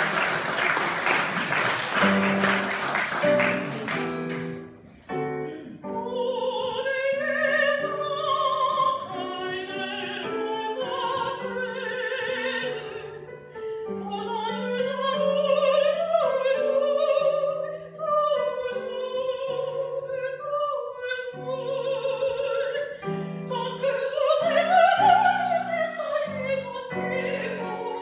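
Applause dies away over the first few seconds as a digital piano begins an introduction. Then a woman sings an opera aria in full operatic voice over the keyboard accompaniment, with a swelling high phrase near the end.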